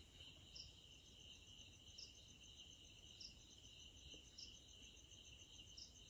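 Faint chorus of night insects: a steady high trill, with a short, higher chirp repeating about every second and a quarter.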